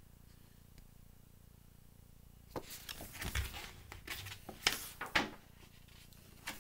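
Picture book being handled and its page turned: a cluster of short rustles and knocks from about two and a half seconds in, after a couple of seconds of near silence.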